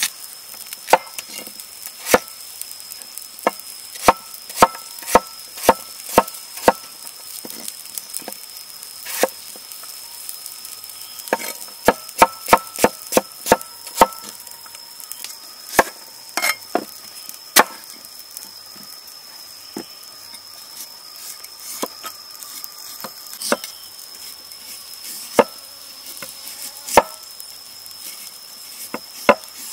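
A cleaver chopping potato, then carrot, on a wooden cutting board: sharp knocks of the blade striking the board, irregular, with quick runs of about four chops a second, over a steady high tone.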